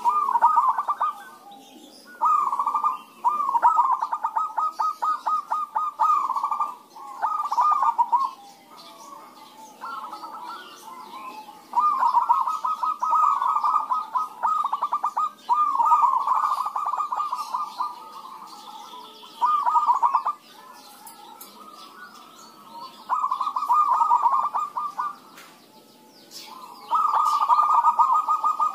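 Zebra doves (perkutut) singing and answering one another: bouts of rapid, stuttering cooing notes, each one to three seconds long, about ten times with short pauses between.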